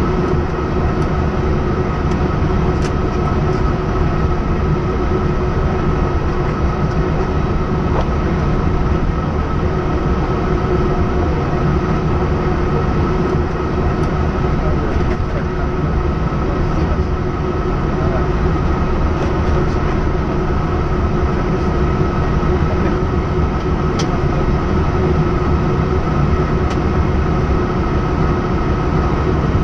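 Cockpit noise of an Airbus A320-232 rolling on the ground at low thrust: its IAE V2500 engines and the cockpit air systems make an even rumble with a steady whine. There are a few faint clicks.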